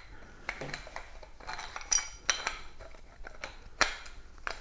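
Threaded metal pipe fittings handled and screwed together by hand: scattered clinks and taps, a few with a brief metallic ring.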